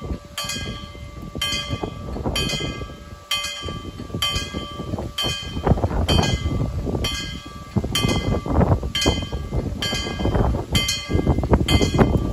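Level crossing warning bell striking in a steady rhythm, a little more than once a second, each strike ringing briefly: the crossing's warning that a train is coming and the barriers are about to lower.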